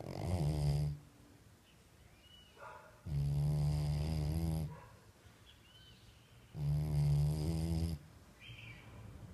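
Loud snoring: three long snores about three seconds apart, the first just ending about a second in, with quieter breathing between them.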